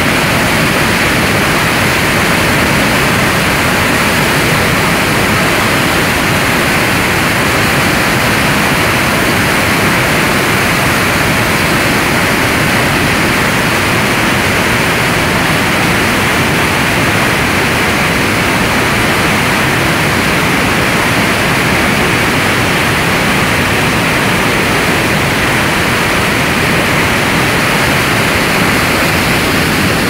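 Flash-flood torrent of muddy water rushing and churning: a loud, steady rush of water.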